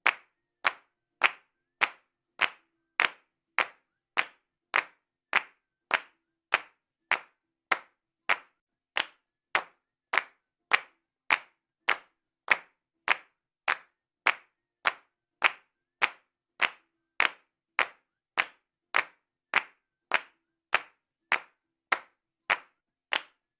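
A looped handclap sound effect: single identical sharp claps repeating at a steady even pace, a little under two a second.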